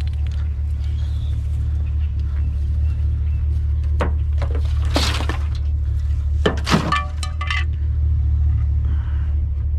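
Steady low drone of a running vehicle, heard from inside, with a few sharp knocks and a brief ringing metallic or glassy clink about seven seconds in.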